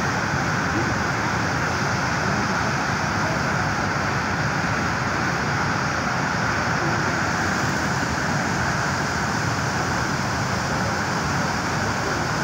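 Muddy flash-flood water rushing steadily down a rocky stream bed, an unbroken rushing noise.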